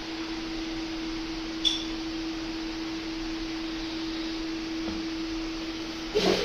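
Steady electrical hum on one low pitch over a constant hiss, typical of a running aquarium filter or pump. A sharp tick comes about one and a half seconds in, and a brief knock comes near the end.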